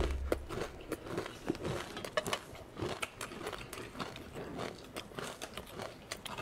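Close-up crunching and chewing of crispy rice-crust (guoba) crackers, an irregular run of crisp crackles, with a low thump right at the start.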